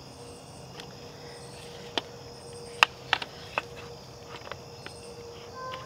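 A few sharp clicks and knocks from a wooden airplane stand's adjustable arm and twist-lock knob being handled, between about two and four seconds in, over steady high-pitched insect chirping.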